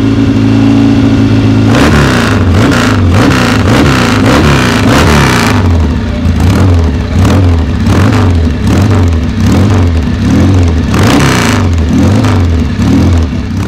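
1966 Kawasaki W1 SS 650's four-stroke parallel-twin engine idling steadily, then blipped repeatedly from about two seconds in, its pitch rising and falling with each rev.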